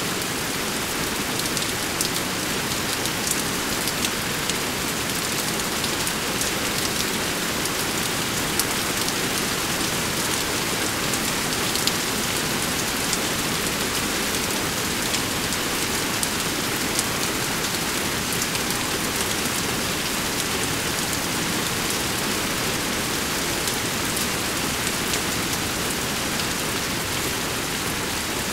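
Steady rainfall, a dense even hiss with many separate drops ticking on surfaces.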